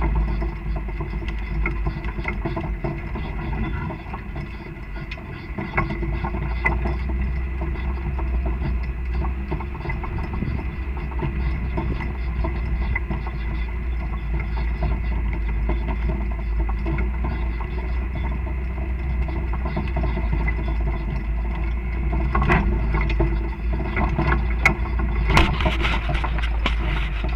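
Off-road vehicle engine running steadily over a heavy low rumble, with a cluster of knocks and rattles near the end.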